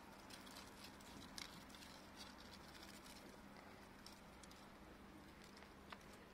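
Near silence with faint rustling and small scattered ticks of leaves and dry grass stirred by a kitten pawing at a dangled plant stem.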